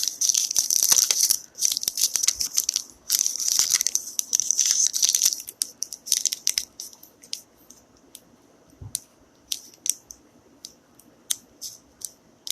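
Scratchy scraping and rubbing in three spells of a second or two each, then scattered light clicks and scrapes: stuck-on old thermal paste being worked off laptop CPU parts.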